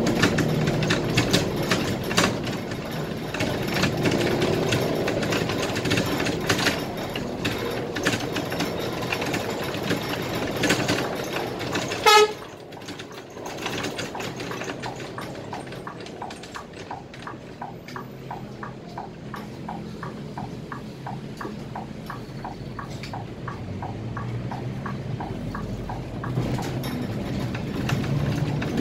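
Scania K320IA bus engine running under way, heard from the driver's cab, with one short horn blast about twelve seconds in. After the blast the engine sound drops and a regular ticking, about two to three a second, comes through.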